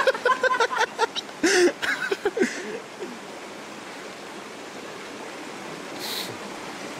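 Steady rush of a mountain stream running through a gorge. In the first couple of seconds a person's voice is heard with some sharp clicks, and there is a short hiss about six seconds in.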